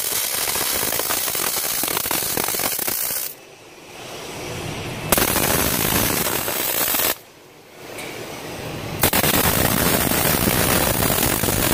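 MIG welding arc crackling as short welds fix a steel backup bar to the test plates. It runs in three stretches, stopping briefly about three and a half seconds in and again about seven seconds in.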